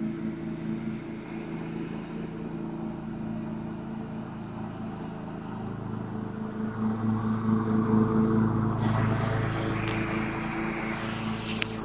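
John Deere riding lawn tractor's engine running steadily, growing louder as it drives close by about seven to ten seconds in, with a rushing noise joining it from about nine seconds.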